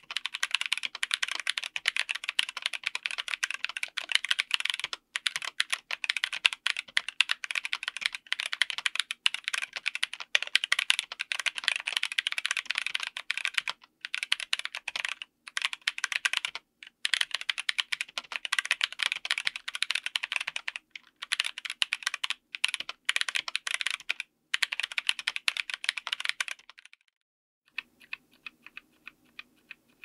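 Fast continuous typing on a mechanical keyboard with Kailh Super Speed Silver linear switches, ABS double-shot Cherry-profile keycaps, an FR4 plate and an aluminium case: dense keystroke clatter with brief pauses. About three seconds from the end the typing stops for a second, then single keys are pressed one at a time, evenly spaced.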